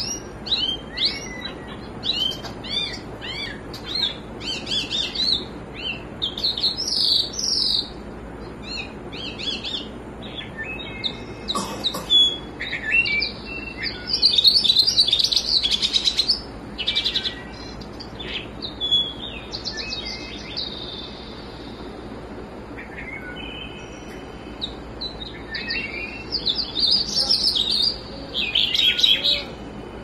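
Caged finch singing: a continual run of quick chirps, twitters and short trills, loudest about halfway through.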